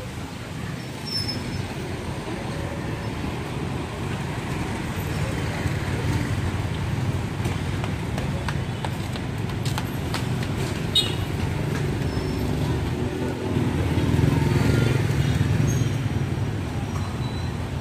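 Street traffic: a steady low rumble of passing motorbikes and cars with voices underneath, swelling louder as a vehicle passes about fourteen seconds in. A sharp click about eleven seconds in.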